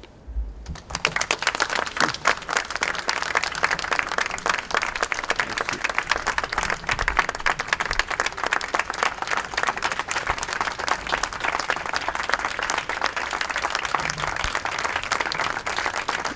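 Audience applauding: a dense, steady mass of hand claps that breaks in about a second in and carries on without letting up.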